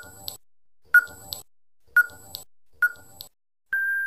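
Quiz countdown timer sound effect: a short beep about once a second, four times, then near the end a longer steady beep as time runs out.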